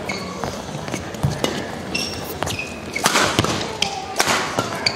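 Rackets striking a shuttlecock in a fast men's doubles badminton rally: a string of sharp cracks at irregular intervals, about two a second. Brief squeaks of court shoes on the court mat come between the hits.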